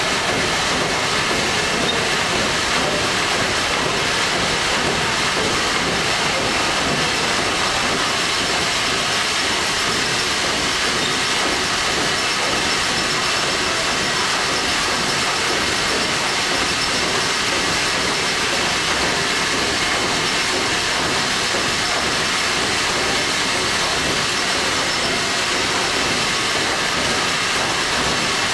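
A Liberty ship's triple-expansion steam engine running under way, heard close up in the engine room as a loud, steady wash of mechanical and steam noise.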